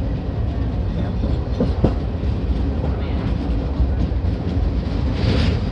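Train running across a steel bowstring-girder bridge, heard from on board: a steady low rumble with the clatter of wheels over the rails.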